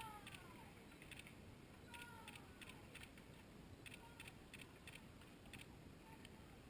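Faint clusters of clicks about every two seconds, the oars of a rowing eight turning in their gates at each stroke, with short falling squeaks, fading as the boat pulls away.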